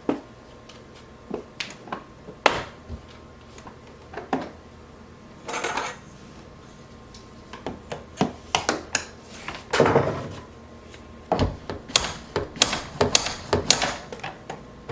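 Irregular metal clicks, taps and short scrapes as a metal ruler is worked against the stuck locking bar of a casement window latch, trying to free it.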